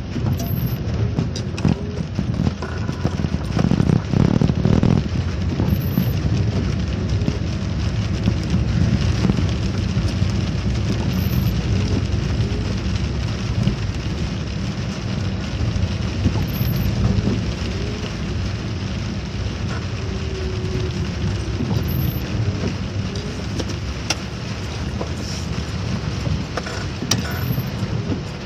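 Steady rain falling, an even hiss over a heavy low rumble.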